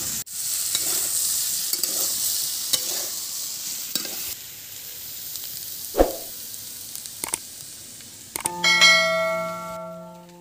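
Potatoes and spices sizzling as they fry in a pan, stirred with a spatula that clicks and scrapes against the pan; the sizzle fades after about four seconds, and there is one sharp knock about six seconds in. Near the end a chime of steady held tones comes in.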